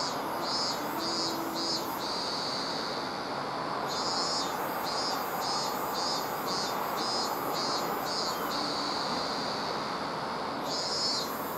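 An insect chirping in bouts of high-pitched pulses, about two a second, stopping and starting again twice, over a steady hiss of outdoor background noise.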